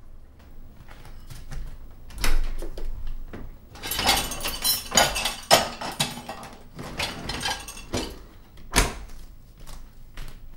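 Dishes and cutlery clattering and knocking as a dishwasher is loaded, with the racks rattling, then the dishwasher door shut with a thump about nine seconds in.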